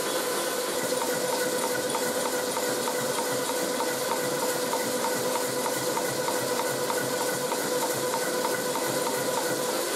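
Klopp metal shaper running, its ram reciprocating at about 190 strokes a minute, roughly three strokes a second. Each stroke gives a short regular clack over a steady motor and gear whine as the tool takes cuts on a part in the vise.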